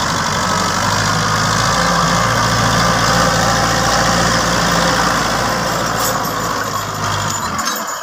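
TAFE 5900 DI tractor's diesel engine running steadily while it drives a rotary tiller through dry soil, with a noisy churning layer over the low engine note. The low engine note drops away near the end as the tractor pulls away.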